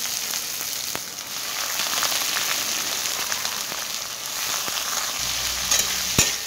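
Sliced onions sizzling in hot mustard oil with whole spices in a metal kadai. Near the end a spatula starts stirring them, with a few sharp clicks against the pan.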